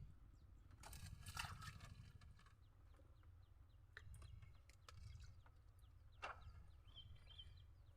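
Faint outdoor ambience: a low steady rumble with scattered short animal calls and a few faint clicks.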